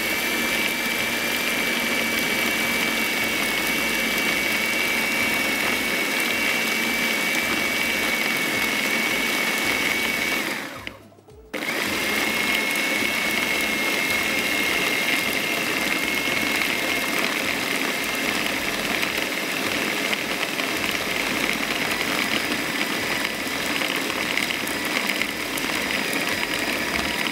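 Electric food processor motor running steadily with a high whine, chopping and mixing a raw minced-meat mixture for meatballs. It stops for about a second around the middle, then starts again and runs on.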